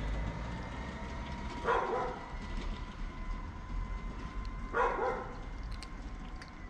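Tabby cat giving two short, deep, guttural meows about three seconds apart.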